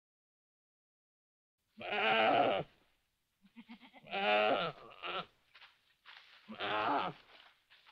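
An animal bleating: three wavering calls, each under a second long and about two seconds apart, the first starting about two seconds in.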